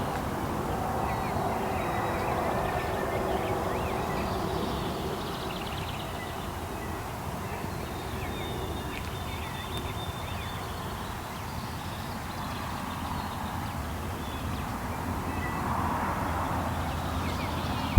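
Small songbirds chirping and singing in many short calls, over a steady low rumble.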